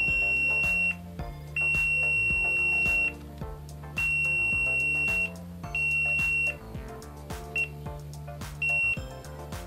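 Multimeter continuity beeper sounding in about six broken, uneven beeps, one high tone, from over a second long down to a short blip. It cuts in and out as the DC-jack cable's ground pin is tested with the cable handled, a sign of an intermittent open ('un falso') in the charred cable. Background music plays underneath.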